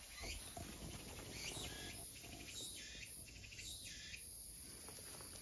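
Faint bird chirps: a few short, rapidly trilled calls between about one and a half and four seconds in, over a low background hiss.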